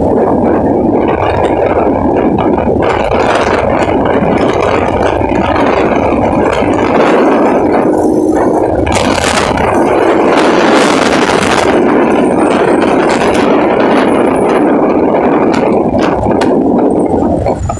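Strong wind blowing without a break, swelling briefly about halfway through.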